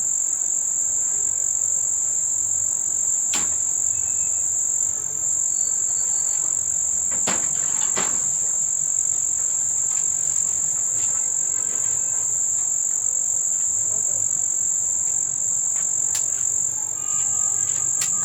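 Insects, cricket-like, trilling steadily in one unbroken high-pitched sound. A few sharp knocks or clicks come over it, one about three seconds in and a pair near the middle.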